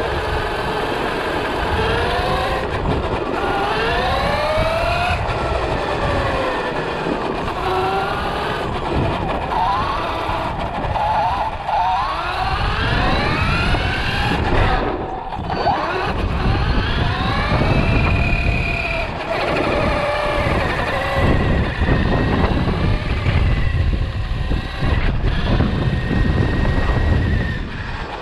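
Radio-controlled car's motor whining, rising and falling in pitch again and again as the throttle changes. Under it is a rough rumble of the tyres rolling over broken-tile mosaic paving.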